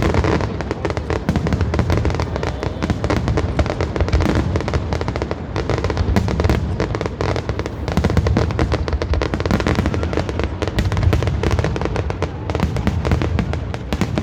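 Fireworks bursting and crackling in rapid, continuous succession, with music playing.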